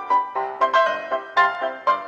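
Background music: a piano-like keyboard playing a melody of quick struck notes, several a second, each dying away.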